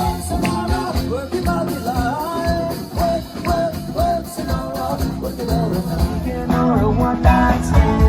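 Rock band music, a lead melody bending in pitch over bass and drums, filling out near the end.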